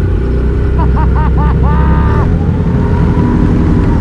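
Can-Am Renegade XMR 1000R ATV's V-twin engine running under throttle on a trail through an SLG Sniper slip-on exhaust. Its note changes about two seconds in, and a short run of pitched rising-and-falling calls sounds over it about a second in.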